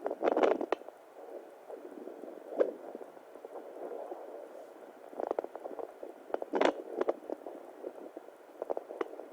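Home fetal Doppler monitor output: a muffled whooshing hiss with a few irregular scratchy clicks, the first just at the start. No steady heartbeat rhythm comes through.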